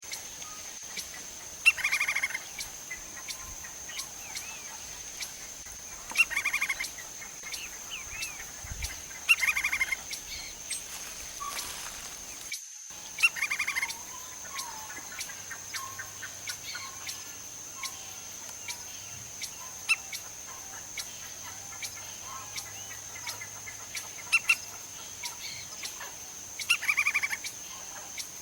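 Lineated woodpecker calling: short, fast series of loud repeated notes, each series about half a second long, given again every few seconds, with the longest pauses in the middle.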